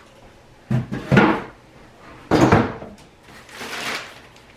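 Styrofoam packing being pulled and scraped off a boxed dishwasher: four short scraping, rubbing bursts, some opening with a light knock.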